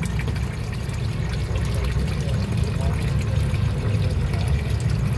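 Aquarium water pouring and trickling steadily, over a continuous low rumble.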